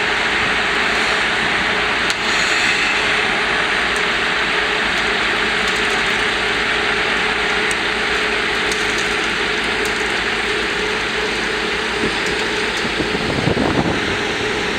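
Heavy tracked foundation drilling rig working: a steady diesel engine and hydraulic noise with a constant hum running through it, turning rougher and louder for a moment near the end.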